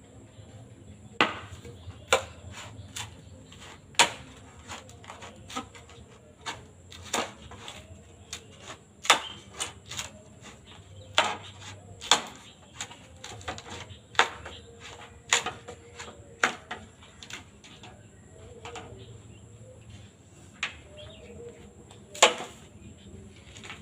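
Bamboo being split by hand: irregular sharp knocks and cracks, roughly one a second and sometimes two in quick succession.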